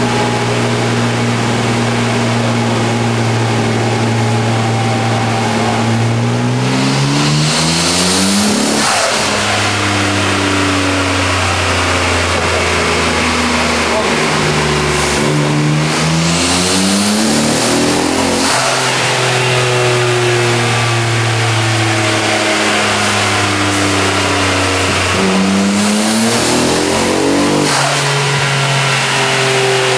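Nissan RB26DETT twin-turbo straight-six running on a dyno, rising in revs three times with a sudden drop after each climb and steady running in between. The engine has what the owner calls a horrible misfire.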